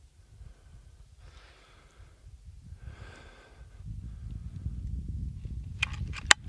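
A man breathing out twice through the nose, about a second and a half apart. Over the second half a low rumbling noise builds on the microphone, with a few sharp clicks near the end.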